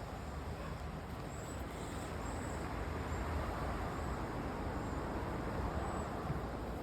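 Steady rush of creek water, with short high bird chirps now and then.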